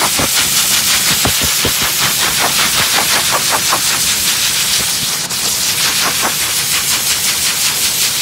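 Forced air dog dryer blowing a loud, steady hiss, its nozzle held down to the skin of a Bernese Mountain Dog's coat to blast out dead undercoat, with a quick irregular fluttering as the air stream buffets the thick hair.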